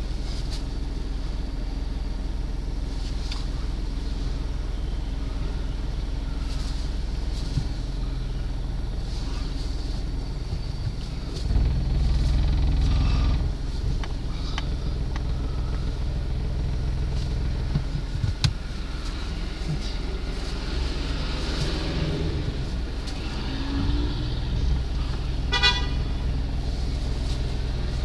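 A car's engine runs with a steady low hum, heard from inside the cabin, amid street traffic. It gets louder and lower for about two seconds around twelve seconds in. A short car horn toot sounds near the end.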